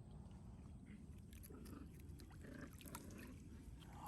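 Faint water trickling, with a few soft short sounds over a low steady rumble.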